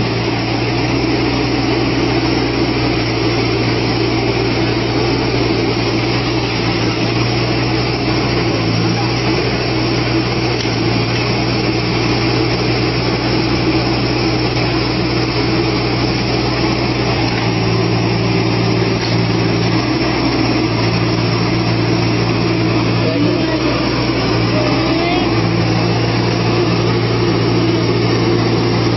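Volvo wheel loader's diesel engine and its front-mounted snow blower running steadily with a low, even hum. The tone shifts slightly a few times in the second half as the load changes.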